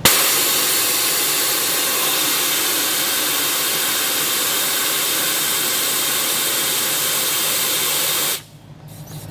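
Air hissing steadily out of a truck tire's valve as the tire is aired down, starting abruptly and cutting off suddenly near the end.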